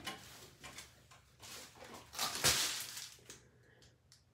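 Faint rustling and handling noises as a plastic padded mailer is picked up, with a louder rustle a little past halfway.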